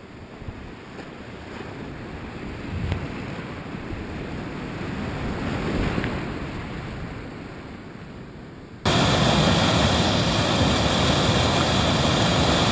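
Whitewater rapids rushing and splashing close around a kayak, building and then easing. About nine seconds in, the sound cuts sharply to a louder, steady roar of a rapid pouring over boulders.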